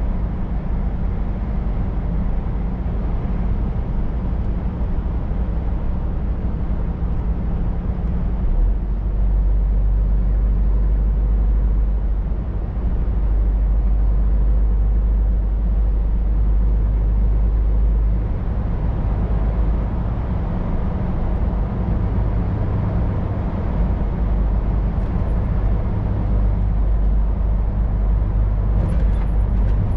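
Scania R500 truck's diesel engine running under way, with steady road noise. The low drone grows louder about nine seconds in and shifts its pitch around eighteen seconds.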